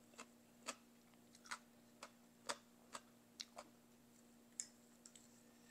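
Quiet eating sounds: a run of faint, sharp clicks, roughly two a second, while braised goby fish is chewed and picked at with chopsticks from a rice bowl.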